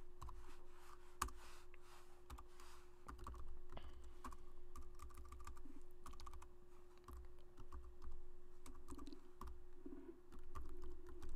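Typing on a computer keyboard: irregular bursts of keystrokes, over a faint steady hum.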